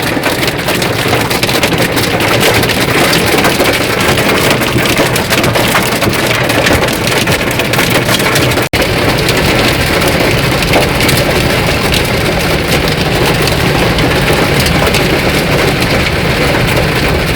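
Heavy rain pouring down and pattering hard on a surface, a dense, steady hiss thick with drop impacts. It breaks off for an instant about nine seconds in, then carries on.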